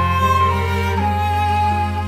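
Violins and cello of a small string ensemble playing a slow passage of long-held notes over a steady low note; the melody moves to new notes about half a second and about a second in.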